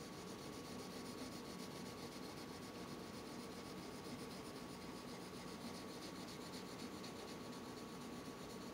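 Faint scratching of a blunt-tipped colored pencil shading over a paper tile with light, repeated strokes. Behind it runs a steady faint hiss with a thin high hum.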